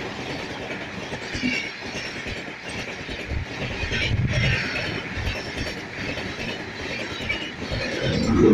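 A train rolling along the rails: a continuous rumble with wheel clatter and short, high-pitched squeaks from the wheels. It grows louder near the end.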